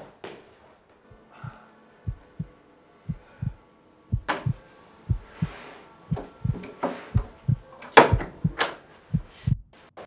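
Heartbeat sound effect: low thuds in lub-dub pairs that speed up, with a few sharp hits about four and eight seconds in.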